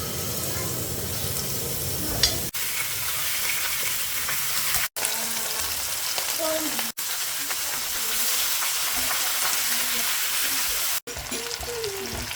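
Ingredients for plov frying in hot oil, a steady sizzle. It drops out briefly at four edit cuts.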